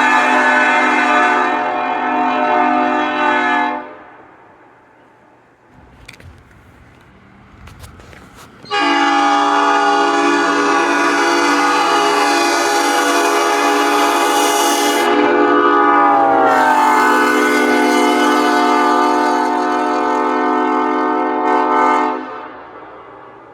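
Multi-chime train air horn sounding a chord in two long blasts: the first cuts off about four seconds in, and after a gap with a few clicks the second sounds for about thirteen seconds, some of its notes dipping in pitch partway through.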